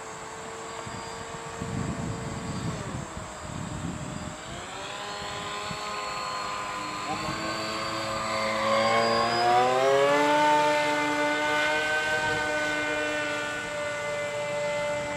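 Brushless electric motor and pusher propeller of a foam RC fighter plane whining in flight. The pitch dips about three seconds in and comes back, then climbs to its highest and loudest around ten seconds in, holds, and drops at the end.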